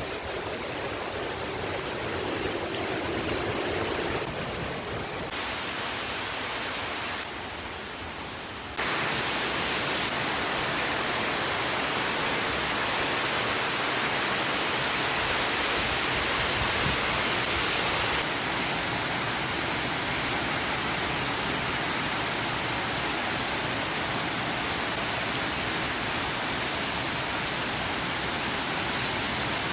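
Heavy wind blowing, a steady rushing noise that jumps louder abruptly about nine seconds in.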